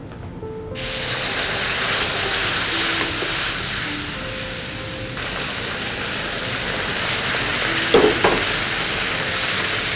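Boiling water poured into a hot pan of ghee-roasted semolina with onions, bursting into a loud hiss and sizzle about a second in. The sizzle eases a little about halfway through and keeps going as the mixture is stirred with a silicone spatula, with a couple of light knocks near the end.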